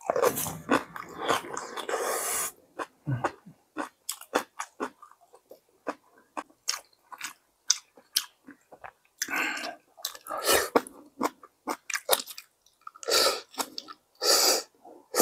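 Close-miked eating of perilla sujebi, hand-torn dough soup: wet chewing of soft dough with many short mouth clicks and smacks. A few longer slurps of the broth come in between, the longest at the start.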